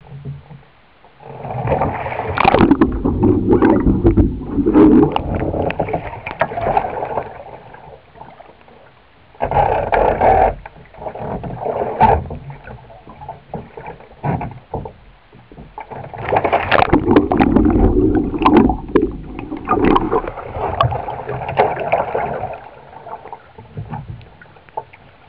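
Water splashing, gurgling and sloshing around a Greenland sea kayak as the paddler capsizes and rolls back up with a reverse sweep roll, close to the microphone. It comes in three long loud spells full of sharp splashes, with quieter lapping between them.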